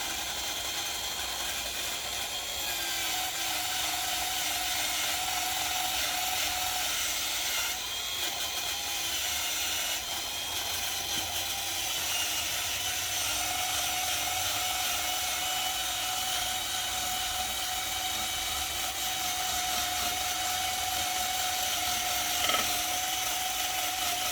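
Electric drill running steadily with a wire wheel fitted, brushing rust off a metal exhaust. The motor's whine dips slightly now and then as the wheel is pressed on.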